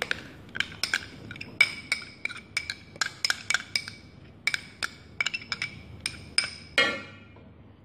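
A metal spoon clinking and scraping against metal vessels as thick ground paste is knocked out into an iron wok. The clinks are quick and irregular and ring at the same pitch, with one longer, brighter ring near the end.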